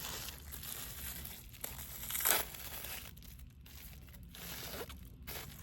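Crinkling and tearing sounds of food being handled, with a sharp crackle about two seconds in and a few softer ones near the end.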